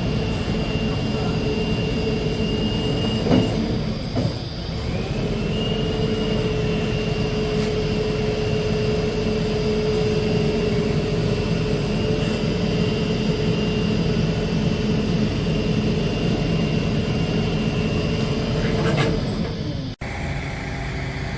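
Large truck running on the road: a steady engine and drivetrain drone with a high whine over it. The whine breaks off about three seconds in and glides back up a couple of seconds later. The sound cuts off suddenly near the end.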